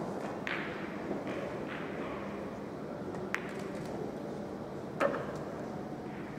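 Pool balls on a 9-ball table: a sharp click a little over three seconds in as the cue strikes the cue ball, then about two seconds later a louder knock as the object ball is pocketed. Fainter knocks and room noise sit underneath.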